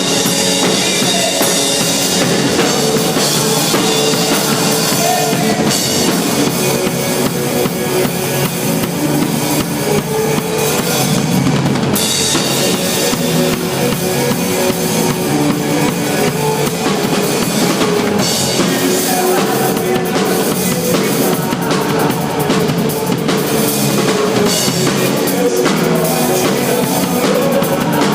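Loud music with a drum kit keeping a steady beat.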